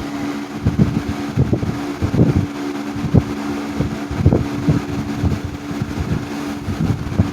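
1987 Patton CA-1284 12-inch rotary box fan running with a steady hum and no racket: its blade, loose on a worn bearing sleeve, is now clamped securely to the shaft. Irregular low thumps of the fan's air buffet the microphone.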